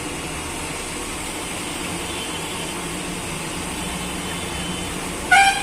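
Steady hissing, rumbling background noise of a street-side cooking stall. Near the end comes one short, loud, high-pitched sound.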